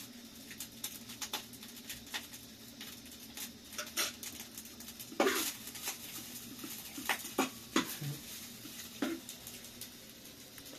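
Metal spoon clinking and scraping against a frying pan as food is stirred on a gas-canister burner: a scatter of light clicks and knocks, the loudest about five seconds in.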